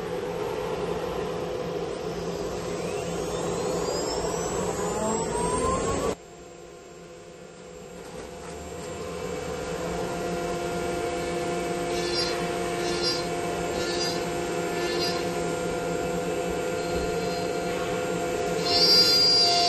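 Electric spindle of a 4-axis CNC wood router running, its whine rising in pitch over the first six seconds as it speeds up. The sound drops suddenly about six seconds in, then builds back to a steady running tone with a few short higher pulses and a louder stretch near the end.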